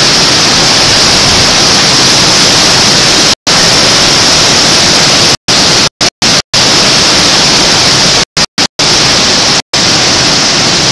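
Hurricane wind gust with driving rain, a loud, even roar of noise against the camcorder. The sound cuts out completely for a split second several times, in gaps around a third of the way in and clustered in the second half.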